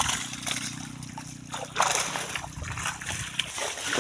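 Water splashing and sloshing in irregular strokes, over a steady low hum that stops about three and a half seconds in.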